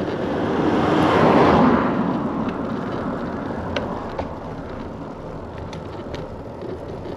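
A motor vehicle passing close by, its tyre and engine rush swelling to a peak about a second and a half in and then slowly fading, with a few faint clicks later on.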